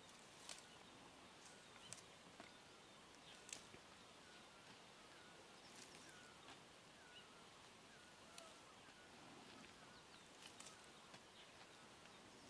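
Near silence outdoors: a faint hiss of open air with a few faint distant bird calls, and a handful of light, sharp ticks scattered through it.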